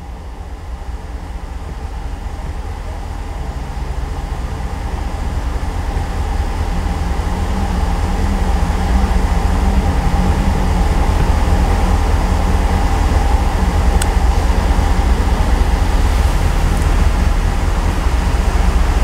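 Pickup truck engine idling, a steady low rumble that grows louder over the first half as the microphone nears it. One short click about three-quarters through.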